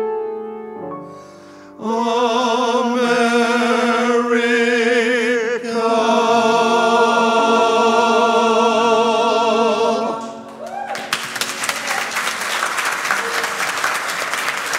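A male solo singer with piano holds the closing notes of a song with wide vibrato, ending on one long sustained note. Applause breaks out right after the note ends, about eleven seconds in.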